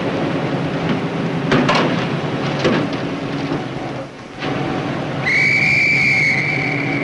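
A steady mechanical drone with a couple of sharp clattering sounds in the first three seconds, then a high, steady whistle that starts about five seconds in and holds.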